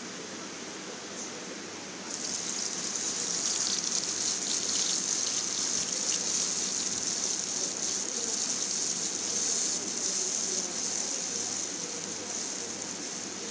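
Wet blended spice paste of garlic, onion, turmeric and green chilli dropped into hot oil in a nonstick wok, starting to sizzle suddenly about two seconds in and sizzling steadily, dying down a little near the end. This is the paste being fried in oil (tumis), the first stage of the dish.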